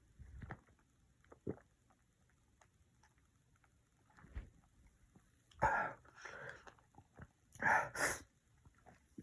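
A sick man coughing and sputtering after a gulp of nighttime cough syrup on ice: one burst about five and a half seconds in, then two close together near eight seconds. A few faint knocks come before.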